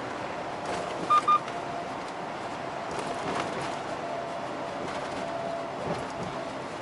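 Steady road and engine noise inside a moving truck's cab, with two short electronic beeps about a second in.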